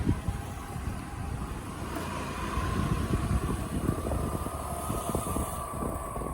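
A road vehicle moving: steady low rumble and road noise, with a faint steady whine coming in about a second and a half in.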